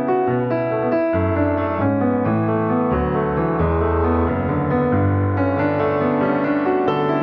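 Background music played on piano or electric piano: a steady flow of notes over a low bass line.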